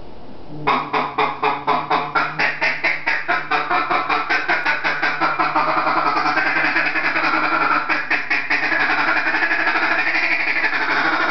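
Timber rattlesnake rattling: separate dry pulses start about a second in, speed up, and blur into a continuous buzz by about six seconds in. This is the snake's warning rattle.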